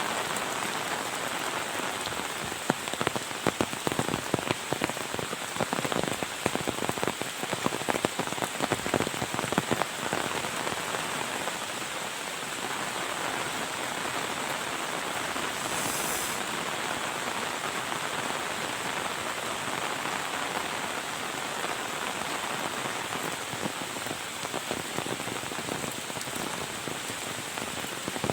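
Heavy rain falling steadily in a dense hiss, with a stretch of loud, close drop impacts patterning over it for several seconds early on and again briefly near the end.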